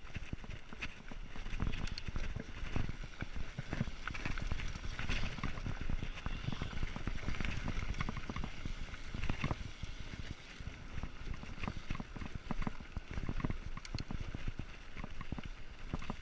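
Mountain bike riding down a dry, stony dirt singletrack: tyre noise on the gravel with a rapid, irregular run of clicks and knocks as the bike rattles over bumps, over a low rumble.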